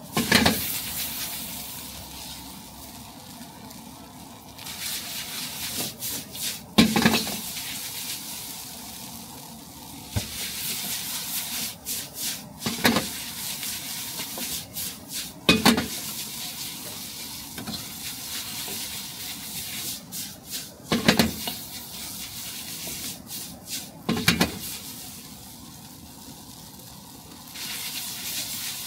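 Chow mein sizzling in a steel wok over a gas burner while a metal ladle stirs and scrapes through the noodles. The ladle strikes the wok with loud clangs every few seconds.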